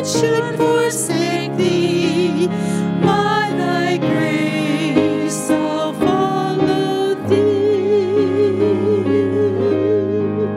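A woman sings a hymn solo into a handheld microphone over instrumental accompaniment. She ends the phrase on a long held note with vibrato over the last three seconds.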